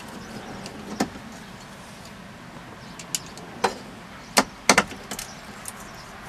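9/32 nut driver backing out the small screws that hold a pickup's glove box: scattered clicks and ticks of the metal tool against the screws and plastic trim, with the sharpest ticks bunched together a little past the middle.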